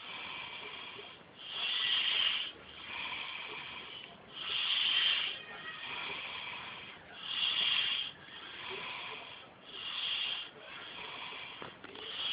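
A man snoring in a steady rhythm: a louder, hissing breath comes about every two and a half seconds, with a quieter breath between.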